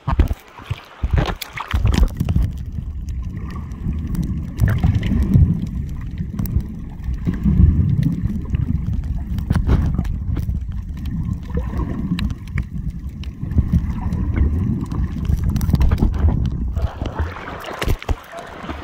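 Water heard through a waterproof action camera as it goes under: a muffled low rumble and gurgling while submerged, with water sloshing and splashing against it as it dips in at the start and breaks the surface near the end.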